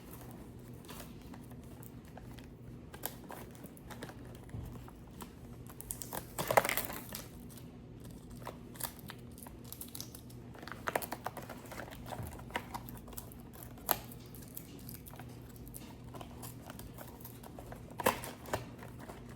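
Plastic packaging crinkling and rustling, with scattered light clicks and taps, as the pieces of a toy slime kit are handled and opened. The loudest rustles come about six seconds in and again near the end, over a faint steady hum.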